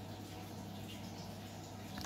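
Quiet room tone: a steady low hum with faint hiss.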